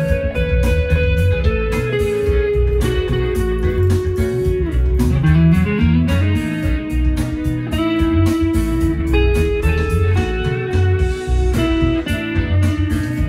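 Electric guitar, a Fender Stratocaster-style solid body, improvising a Mixolydian lead line of held and bent notes, with a rising slide about five seconds in. It plays over a backing track with a steady beat and bass.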